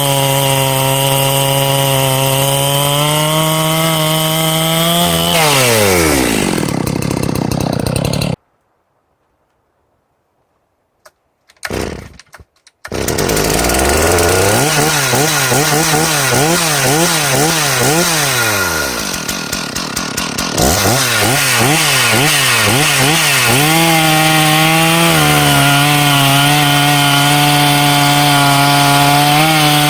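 Large two-stroke chainsaw running flat out as it cuts through ponderosa pine, then its revs winding down. After the sound drops out, a chainsaw revs up and down again and again, then is held wide open for the next cut.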